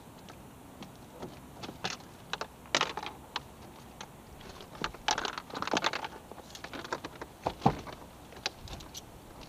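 Irregular clicks, rattles and short knocks of fishing gear being handled in a small boat.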